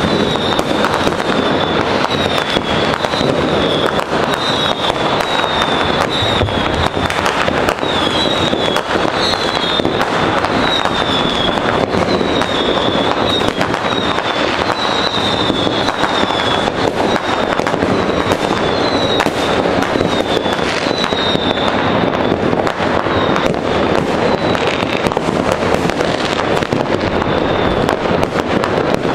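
Many fireworks going off at once all around: continuous overlapping bangs and crackles of rockets and firecrackers, with a wavering high whistle running through.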